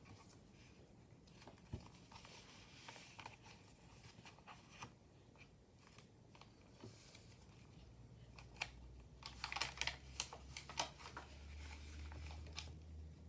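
Pages and paper pieces of a handmade junk journal being turned and handled: faint soft rustling and a few light taps, then a cluster of crisp page flaps and crinkles from about nine to eleven seconds in. A low hum comes in during the second half.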